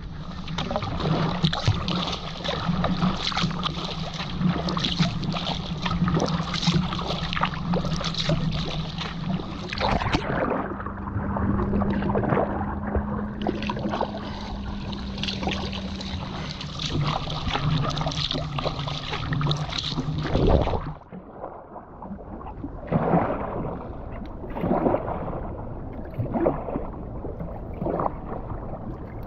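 Water rushing and gurgling along the hull of a P&H Cetus sea kayak under way, recorded right at the waterline, with small splashes throughout. About two-thirds of the way through, the steady rush cuts off suddenly, leaving quieter, separate splashes and lapping.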